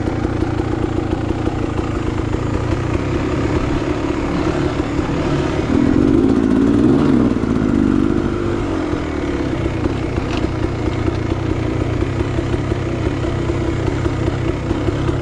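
A Beta Xtrainer 300 two-stroke dirt bike with an FMF Gnarly pipe, running at low, steady revs while being ridden on a trail. The throttle opens briefly about six seconds in, then drops back to a steady putter.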